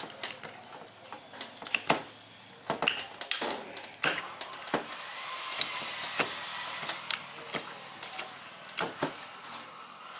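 Metal spoon stirring a ceramic bowl of dipping sauce, clinking against the bowl in scattered sharp clinks. A steady hiss comes up about halfway through.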